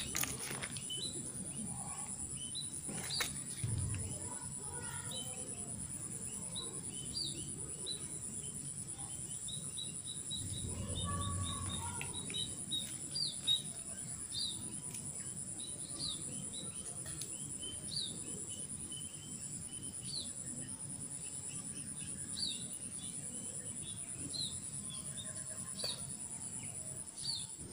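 Steady high-pitched insect drone with short high chirps repeating about once a second, and a few soft knocks.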